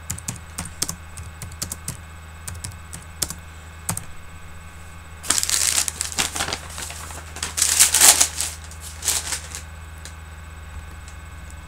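Typing on a computer keyboard, a run of separate key clicks, then in the middle a few loud bursts of rustling noise from something being handled.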